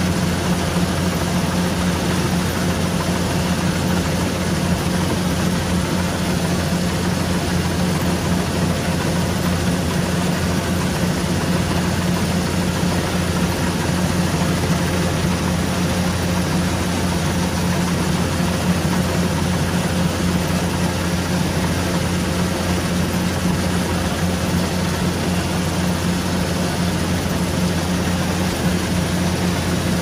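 Rice combine harvester running steadily while cutting: a constant low engine drone with an even machinery noise over it.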